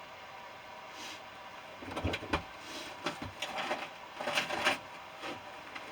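Scattered knocks, clinks and scrapes of parts being handled while an air-conditioner compressor is dismantled, with a few dull thuds about two seconds in and a busier patch near the end.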